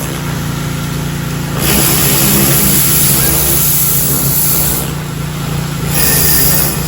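Pressure washer running steadily while its jet sprays through a power blaster tip on a telescoping pole. The spray's loud hiss starts about a second and a half in, stops near five seconds, and starts again about a second later as the trigger is released and squeezed.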